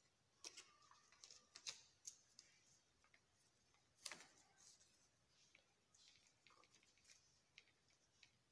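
A sheet of paper being folded and creased by hand: faint, sparse crinkles and rustles, the loudest about four seconds in.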